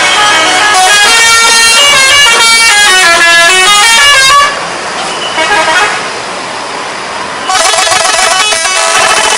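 Bus 'telolet' musical horn playing a quick tune of stepping notes, breaking off about halfway through and starting up again near the end, with a quieter noisy stretch in between.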